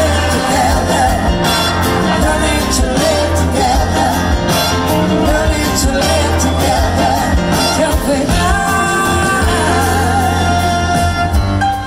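Live rock and soul band with electric guitars, drums and a horn section, a woman singing lead with wavering, held notes, heard from within the audience.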